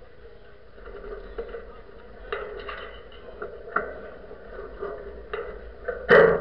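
Irregular clicks and knocks from a sailing yacht's mast and rigging under way, over a steady rush; a much louder bang about six seconds in.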